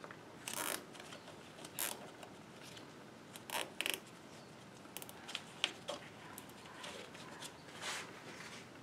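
Faint, scattered clicks and scrapes of small metal parts as gloved hands fit a wire's ring terminal onto a car battery post and tighten it down.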